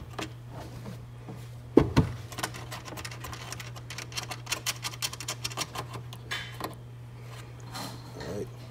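Two sharp knocks about two seconds in, then a quick run of small clicks and ticks, several a second, for a few seconds: a bolt being started by hand on a tail-light mounting point. A low steady hum runs underneath.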